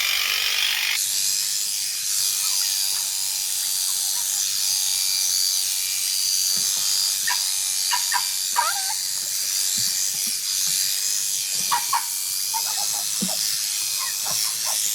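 Electric sheep-shearing clippers running steadily with a high-pitched whine.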